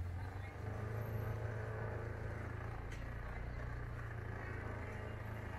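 City street traffic: vehicles running by with a steady low rumble.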